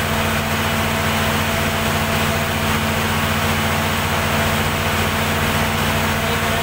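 Perkins diesel generator set running steadily, a low, even engine drone with a hiss over it.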